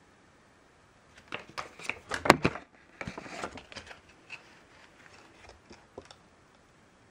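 Glossy paper fold-out booklet being handled and its folded pages flipped open: a cluster of crinkles and crackles about a second in, loudest near the middle, thinning to a few light ticks.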